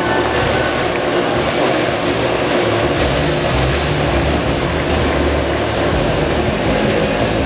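Motorcycle engines running and revving continuously as stunt riders circle inside a steel-mesh globe of death, the engine note rising and falling.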